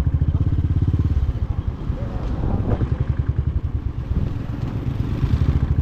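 Motorcycle engine running under way with a rapid low pulsing, easing off slightly through the middle and picking up again near the end.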